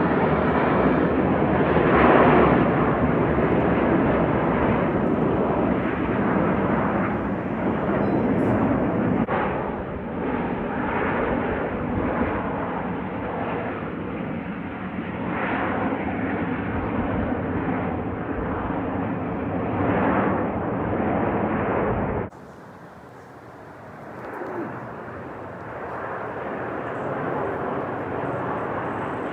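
Airplane engine noise from aircraft passing overhead, loud and steady. It drops off abruptly about 22 seconds in, then a quieter airplane sound slowly builds.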